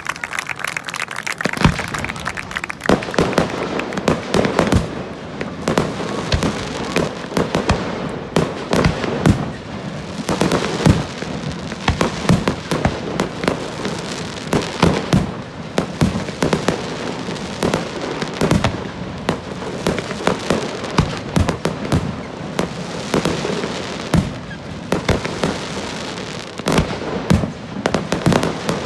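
Fireworks display in a dense, continuous barrage: many sharp bangs in quick succession over a steady crackling.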